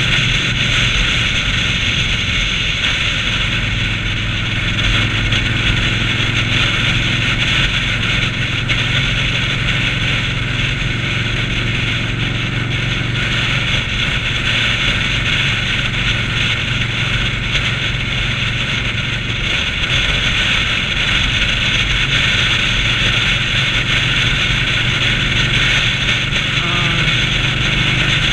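Indian Scout motorcycle's V-twin engine running steadily at highway cruising speed, with constant wind noise rushing over the microphone.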